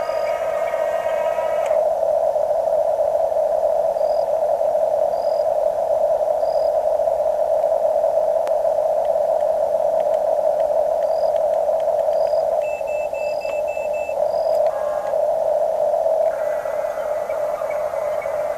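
Radio-controlled Huina toy excavator and bulldozer running: a steady buzzing whine from their small electric motors and gearing, with short high beeps now and then and a quick run of about six beeps near the end.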